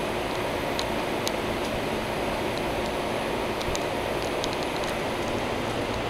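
Goodman central air-conditioning condenser unit running, with a Copeland scroll compressor and a three-blade condenser fan: a steady rush of air from the fan over a faint low hum.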